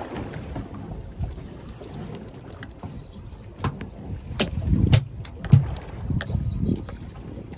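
Wind on the microphone and water washing against the side of a small boat out at sea, a steady low rumble, with a few sharp knocks and thuds a little past halfway.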